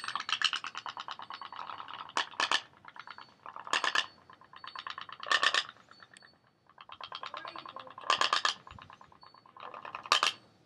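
Pop-pop boat's little steam engine popping rapidly in uneven fits, with louder bursts and brief lulls. It is running rough, which the owner puts down to the wind cooling the boiler too much.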